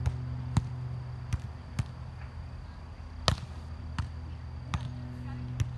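Volleyball being struck during a rally: a series of sharp slaps of hands and forearms on the ball, the loudest a little past three seconds in, over a steady low hum.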